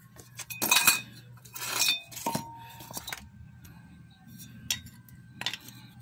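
Clinks and scrapes of metal washing-machine motor parts as a rotor is test-fitted into the motor housing. The heaviest knocks come in the first three seconds, one with a brief metallic ring, followed by a few light clicks.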